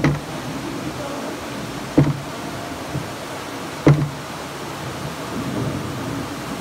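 A rowboat's wooden oar knocks in its metal oarlock at each stroke, three knocks about two seconds apart, over the steady rush of a waterfall close by.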